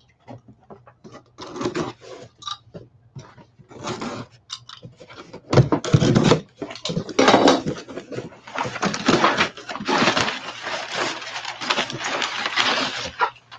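Cardboard shipping box being opened: scattered short scrapes and rustles of the cardboard and flaps. About halfway through this gives way to a dense, continuous rustling and crackling of crumpled brown packing paper being pushed aside.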